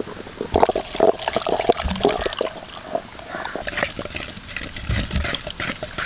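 A wooden dal masher (mathu) twirled rapidly between the palms in a clay pot of boiled greens, churning them into a mash. It makes a wet churning sound with many quick, irregular clicks of the wood against the pot.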